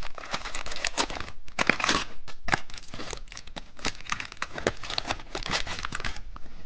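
Plastic candy wrapper crinkling with irregular crackles as it is handled and torn open.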